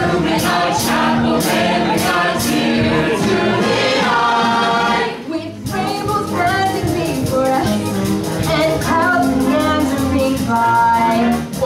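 Stage musical number: the cast singing together over instrumental accompaniment with a steady beat. The music dips briefly about five seconds in, then picks up again.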